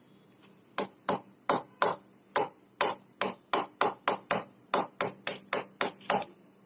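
Boiled crab shells being tapped with a wooden utensil to crack them open: a run of about eighteen sharp knocks, roughly three a second, starting about a second in.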